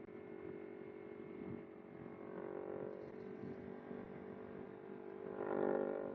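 Kawasaki Ninja 250R's parallel-twin engine running at steady revs while riding, swelling louder briefly near the end.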